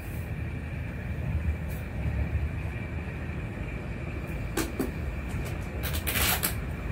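Rajdhani Express running, heard from on board: a steady low rumble under a steady high hum. A short knock comes a little over four and a half seconds in, and a louder rattle about six seconds in.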